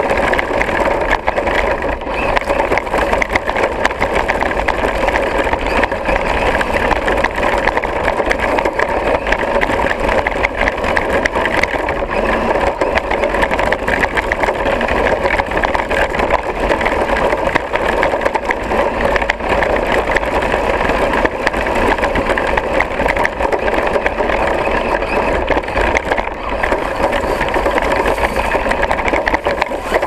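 Axial Deadbolt RC trail truck driving over snow, heard from a camera mounted on the truck: its electric motor and drivetrain gears give a steady whine, with frequent small knocks and rattles from the chassis.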